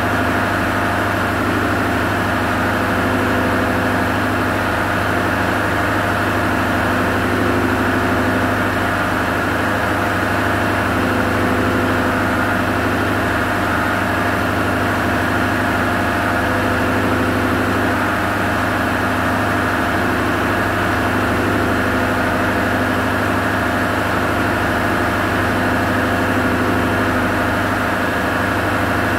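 Steady drone of diesel machinery running at constant speed in a ship's engine room, with a deep hum and a few fixed tones above it.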